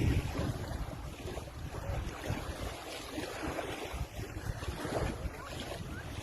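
Wind buffeting the microphone outdoors on the water, low gusty rumbles over a steady rush of water, easing a little after the first couple of seconds.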